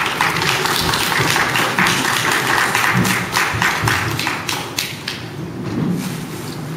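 Audience applauding, a dense run of handclaps that thins out and fades over the last couple of seconds.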